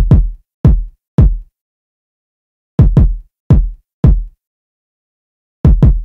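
Drill-style electronic kick drum loop at 168 BPM: short, punchy kicks, each falling quickly in pitch, in a syncopated pattern. The kicks come in quick clusters with silence between, and the pattern repeats about every three seconds.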